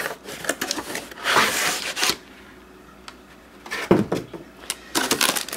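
Cardboard packaging being handled: cardboard sliding and scraping against cardboard as an insert is pulled out of the box, with scattered rustles and a knock about four seconds in.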